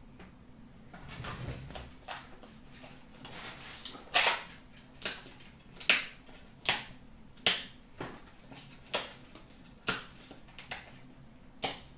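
Trading cards being handled: a series of sharp snaps, about one every three-quarters of a second, starting about four seconds in, with a few softer clicks before.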